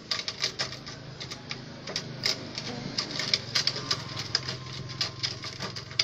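Twig stick figure jiggling on a wooden tabletop, its stick feet clattering against the wood in a quick, irregular run of light clicks and taps, several a second.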